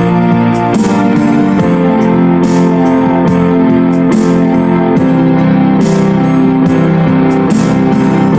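Background music: sustained keyboard chords that change every second or so over a steady beat.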